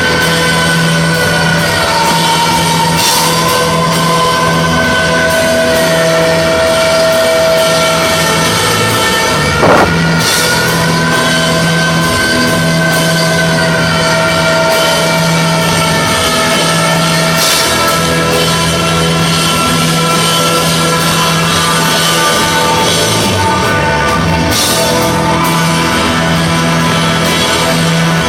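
A live rock band plays loudly over a steady low drone, with gliding guitar lines and a crash every few seconds.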